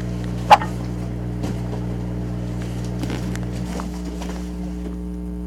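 A steady low hum made of several even tones, with one sharp, loud click about half a second in and a few fainter clicks after it. One of the lower tones drops out a little past the middle.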